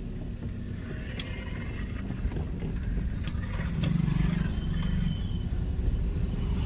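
Vehicle engine and road rumble from a vehicle being driven. The sound is steady and low, and gets louder about four seconds in.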